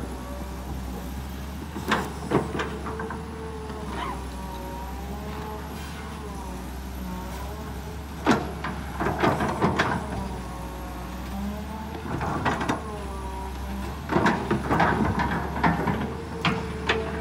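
Kobelco SK200 hydraulic excavator's diesel engine running steadily, its note dipping and rising as the arm and bucket work. Clusters of sharp knocks and crunches come as the bucket digs into soil around a tree stump, loudest about halfway through and again near the end.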